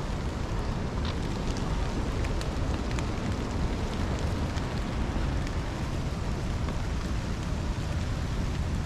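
Strong gusting wind, 30 to 50 mph, rushing through the woods and buffeting the microphone in a steady low rumble, with scattered light ticks of rain.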